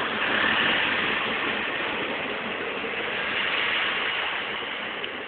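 Freight train cars rolling past on the track: a steady clatter and rumble of wheels on rail that slowly fades.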